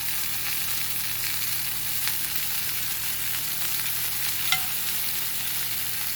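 Chicken thigh frying in a pan: a steady sizzling hiss, with a sharp click about four and a half seconds in.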